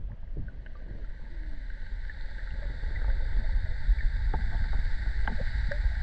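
Muffled underwater sound from a camera submerged in a spring-fed creek: a steady low rumble of moving water with scattered small clicks and a faint steady hiss.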